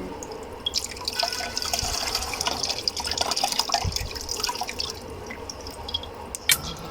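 Water pouring and trickling, with small drips and splashes.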